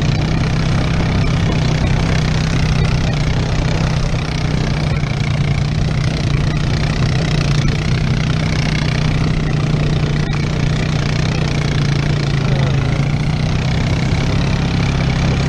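ATV engine running at a steady speed while towing a dirt bike on a strap. Its low, even drone is mixed with a constant rush of tyre and trail noise.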